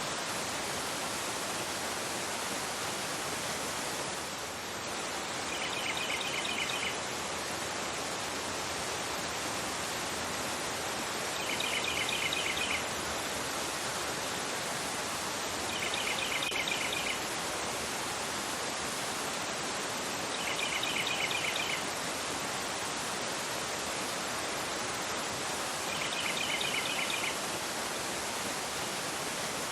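Fast river rushing over a rocky bed, a steady full hiss of water. Over it a bird gives a short rapid trill about five times, roughly every five seconds.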